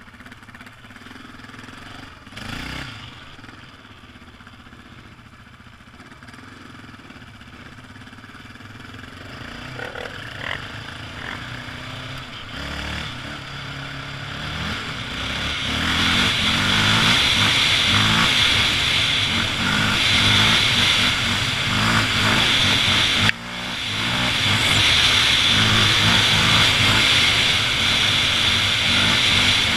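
Quad (ATV) engine running while riding, quieter at first and growing louder through the first half as it speeds up, then running hard with a rushing hiss. A short thump comes early, and the sound drops out briefly and sharply about three quarters of the way through.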